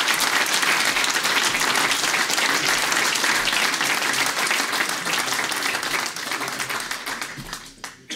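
Audience applauding, a dense steady clapping that dies away over the last two seconds.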